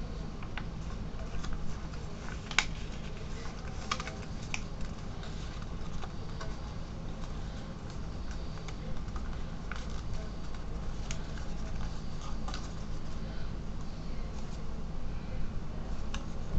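A sheet of paper being folded and creased by hand, with scattered crackles and rustles. The loudest crackles come a few seconds in, over a steady low hum.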